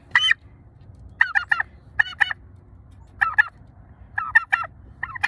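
Turkey gobbling in short rattling bursts, about one a second, six times.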